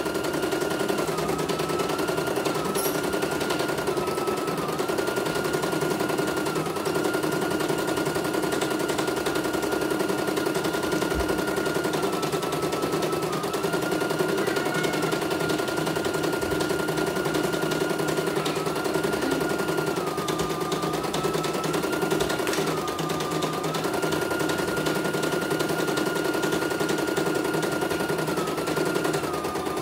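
CNY E900 computerised embroidery machine stitching a design: the needle runs in a rapid, steady rattle, over a high motor whine that dips briefly in pitch now and then.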